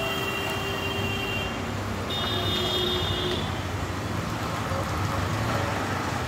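Road traffic noise: a steady rumble, with a thin high-pitched squeal at the start and again for about a second from two seconds in.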